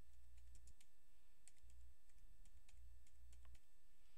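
Computer keyboard typing: a run of faint, irregularly spaced key clicks as a short phrase is typed, over a low rumble that comes and goes.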